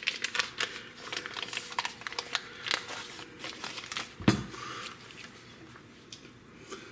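Paper wrapper of a stick of butter crinkling and tearing as it is peeled off, with one dull thump about four seconds in as the butter drops into a stainless steel saucepan.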